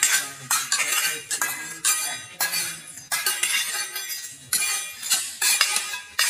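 A sickle and a flat metal scraper chopping and scraping weeds off concrete paving: irregular metallic scrapes and clinks, about two a second.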